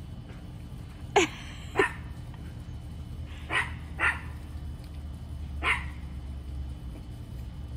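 A small Shih Tzu–Bichon Frise mix dog barking five times in short single barks: two loud ones about a second in, a softer pair a couple of seconds later, and one more near the end.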